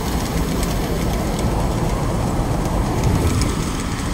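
Steady mechanical noise of rooftop refrigeration equipment running, heaviest in the low range.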